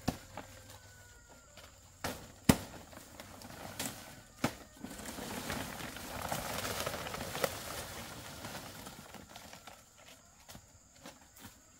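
A machete strikes fan-palm frond stalks in a few sharp chops, the loudest about two and a half seconds in. Then comes a stretch of palm leaves rustling and crackling as the fronds are handled and dragged.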